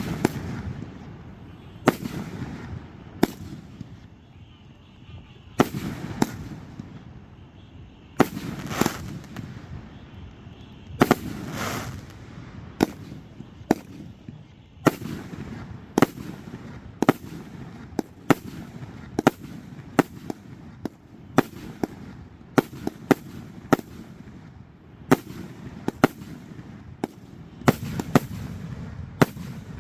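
Aerial fireworks show: a long series of sharp shell bursts, a few seconds apart at first and coming more often about halfway through, some trailing off in a longer rushing rumble.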